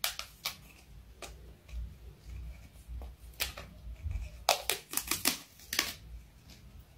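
A cat's claws scratching and tapping at a textured wallpapered wall: irregular scrapes and clicks, busiest about four to six seconds in.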